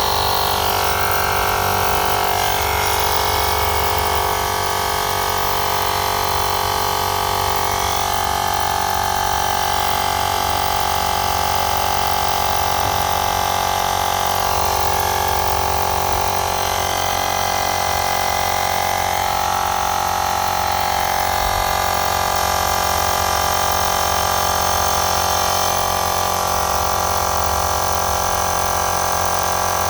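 Xiaomi Air Pump 2 rechargeable electric air compressor running steadily, its small motor and piston pumping air into a tire from a low 4 PSI.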